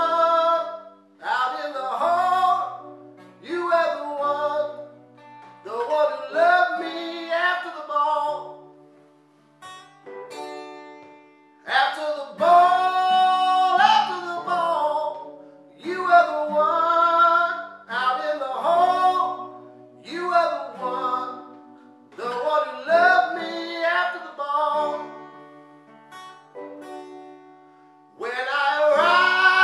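A man singing a song in phrases while strumming an acoustic guitar.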